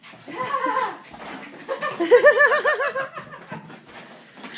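Dog whining, with a short call near the start and a longer call about two seconds in whose pitch wavers quickly up and down.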